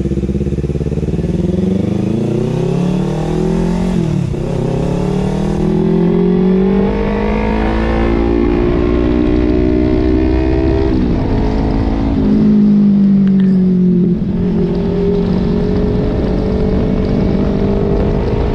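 Kawasaki Ninja 250 FI parallel-twin engine through an Austin Racing aftermarket exhaust, pulling up through the gears. Its pitch rises and drops at upshifts about four and eleven seconds in. From about fourteen seconds in it runs at a steady cruise.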